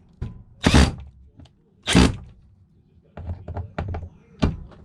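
Loud thunks from tools and hardware being handled, spaced out over a few seconds, with a run of light clicks and taps between the last two.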